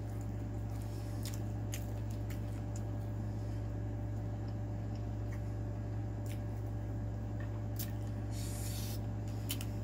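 Hands picking through a sauce-soaked seafood boil of shrimp, crawfish and corn, making soft wet squishes and a few faint clicks over a steady low electrical hum. There is a brief hiss about eight and a half seconds in.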